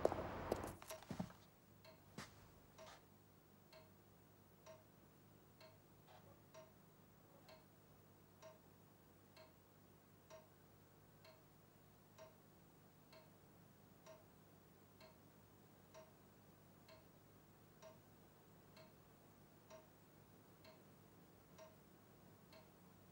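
Footsteps fade out in the first second, then a clock ticks faintly and evenly, about one tick a second.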